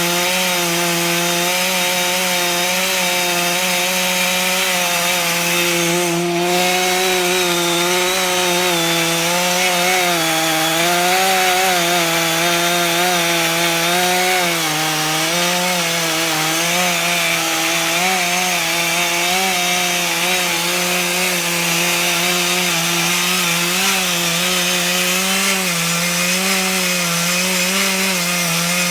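Chainsaw held at full throttle under load in a homemade chainsaw mill, its 36-inch bar ripping lengthwise through a red alder log. The engine note stays steady with a slight wavering in pitch.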